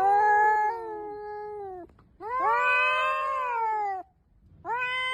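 A cat yowling in long, drawn-out meows: two calls of about two seconds each, then a shorter third that cuts off suddenly near the end.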